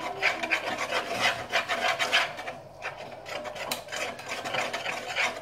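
A spoon stirring and scraping thick flour-and-water dough in a pan, in quick, rough, repeated strokes, the dough thickening and sticking to the spoon as it heats.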